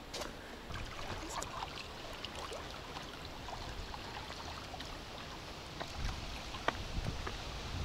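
Lake water lapping and splashing against shoreline boulders: a steady wash with scattered small splashes, a few sharper ones near the end.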